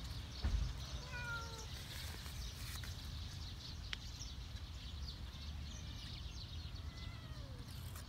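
Cat meowing: a short, slightly falling meow about a second in and a fainter falling one near the end, with a low thump about half a second in.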